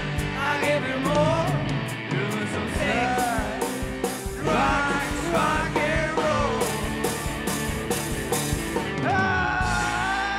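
Rock song with singing over a steady drum beat, ending in a long held note near the end.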